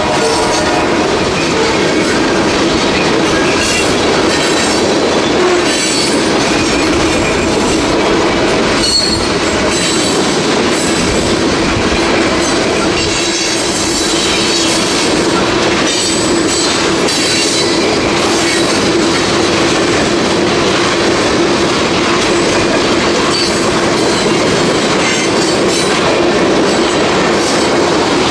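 A freight train rolling past close by, its cars rumbling and clattering over the rails with a steady wheel squeal. A horn-like pitched tone dies away just at the start.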